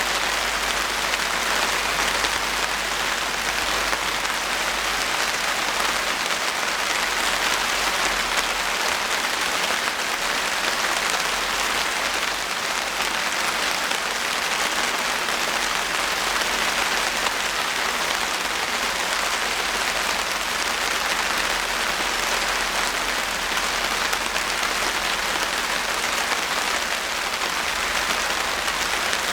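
Steady rain falling, an even, dense hiss of drops that holds unchanged throughout.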